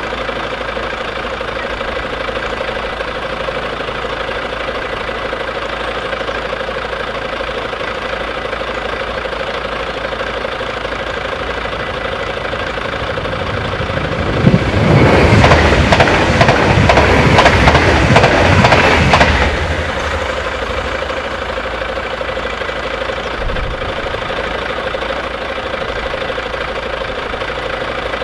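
Level-crossing bells ringing steadily while the barriers are down. About fourteen seconds in, a passenger train passes over the crossing for about five seconds, the loudest sound, and the bells keep ringing after it has gone.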